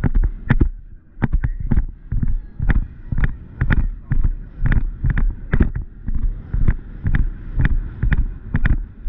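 Horse cantering on grass, heard from the saddle: a steady hoofbeat rhythm of about two strides a second, with tack jolting and wind on the microphone. A brief lull about a second in fits the horse clearing a cross-country log fence before the stride picks up again.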